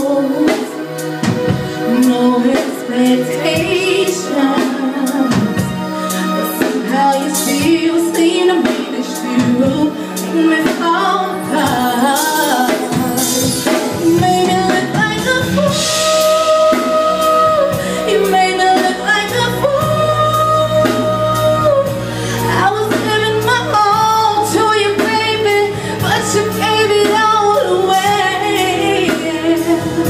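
A woman singing an R&B song live into a microphone, backed by a band on keyboards, drums and electric guitar, with several long held notes.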